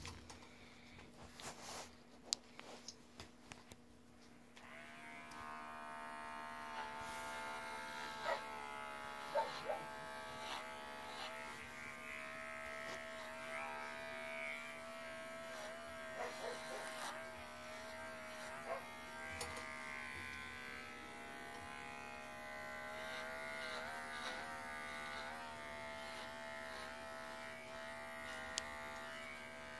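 Cordless pet hair clipper switched on about four seconds in and running with a steady buzz while it clips the hair on a puppy's head and ear. Its pitch wavers briefly now and then as the blade meets the coat, and a few faint handling clicks come before it starts.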